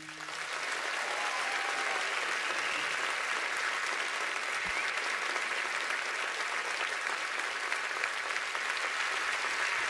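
A large audience applauding, dense steady clapping that swells in at once as the last acoustic guitar chord dies away.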